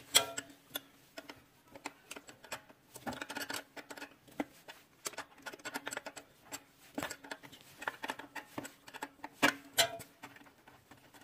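Irregular metallic clicks and taps as a wrench and a steel pedal rod knock against the linkage under a sewing machine while the rod is fitted.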